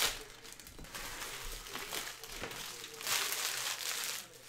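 Foil wrappers of Panini Elite basketball card packs crinkling as they are handled, with the loudest stretch of crinkling for about a second near the end.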